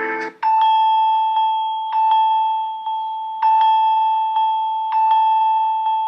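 A Samsung Galaxy One UI 8.5 ringtone: a bell-like chime of light strikes over a held high tone, the phrase repeating about every second and a half. It starts about half a second in, right after the end of a plucked-guitar ringtone.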